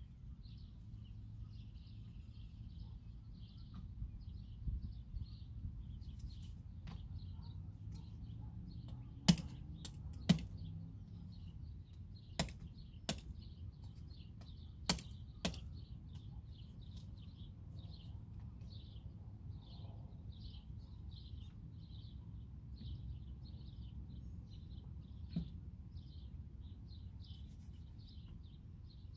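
Bird chirping steadily, short high calls a few times a second, over a low steady outdoor rumble. Sharp knocks cut through it, mostly in pairs, through the middle, and once more near the end.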